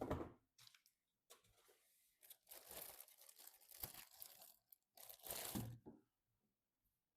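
A soft knock, then two stretches of crinkling and tearing, as of packaging being torn open. The second stretch ends a little before six seconds in.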